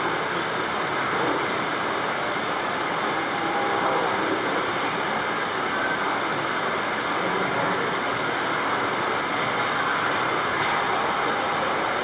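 Steady rushing and splashing of water churned by the aerator in a shrimp-fishing pond, an even noise that does not change.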